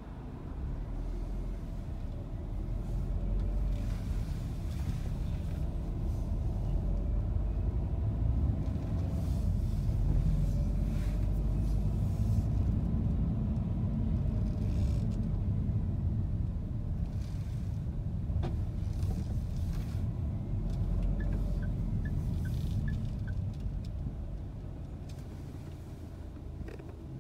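Car driving on a city road, heard from inside the cabin: a steady low rumble of engine and tyre noise that builds about a second in and eases off near the end.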